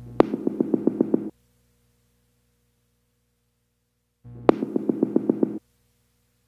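Background music: two short phrases of quick repeated synthesizer notes, each about a second long, the second starting about four seconds after the first.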